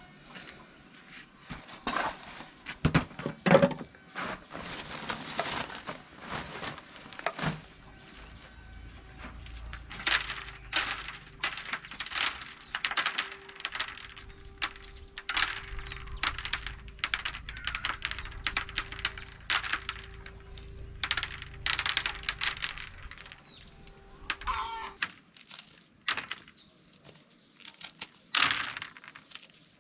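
Dried corn being shelled by hand: kernels cracking off the cob and dropping onto a woven bamboo tray in repeated runs of quick crackling clicks. A few louder knocks sound near the start.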